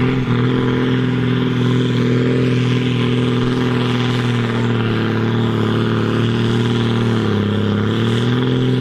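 John Deere farm tractor's diesel engine pulling a weighted sled at full throttle under heavy load, a steady, loud drone. Its pitch sags briefly near the end as the engine lugs down under the load, then recovers.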